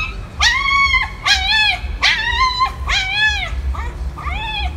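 Small curly-coated dog whining in a string of about five high cries, each rising and falling in pitch over about half a second.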